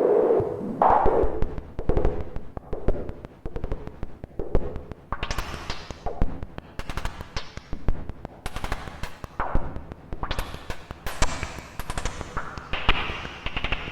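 An old electronic white noise machine giving out rapid, irregular crackling and popping, with bursts of bright hiss that come and go from about five seconds in.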